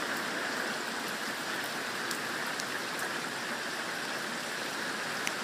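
Heavy rain pouring down steadily, with a few sharp ticks of drops striking close by.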